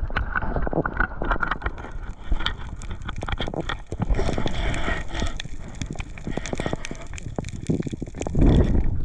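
Underwater noise as the camera moves through the water: churning water against the housing, with many small clicks and crackles and a louder low surge near the end.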